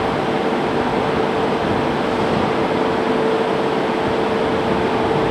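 A steady mechanical hum: a constant mid-pitched tone over an even rushing noise, unchanging throughout.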